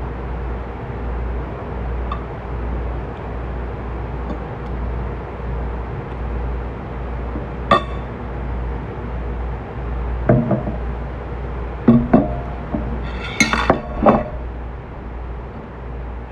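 Scattered clinks and knocks of a glass jar and a fork against a ceramic plate: one sharp clink about 8 s in, then a cluster of clinks and knocks later on, the loudest near the end. A steady low room hum runs underneath.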